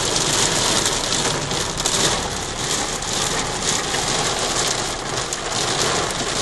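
Heavy rain falling on a car's roof and windshield, heard from inside the cabin as a dense, steady hiss.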